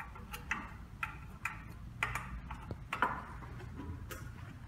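Light clicks and metallic ticks at uneven intervals from a Phillips screwdriver working the screws out of the back panel of a Rockwell hardness tester.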